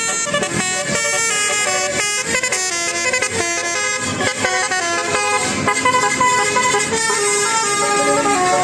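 Bus-mounted Basuri telolet musical horn playing a quick melody, its loud horn notes stepping from pitch to pitch.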